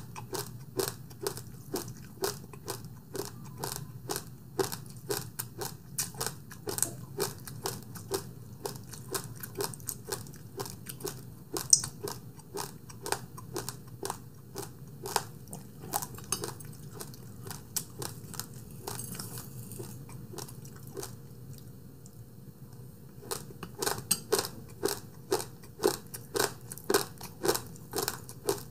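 Close-up chewing of crunchy food, with sharp crunches at about two to three a second. There is a pause of a few seconds about two-thirds of the way in, and then the chewing starts again.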